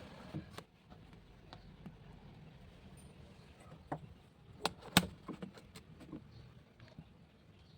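A scatter of light knocks and clicks at irregular intervals over a low steady background, the sharpest knock about five seconds in.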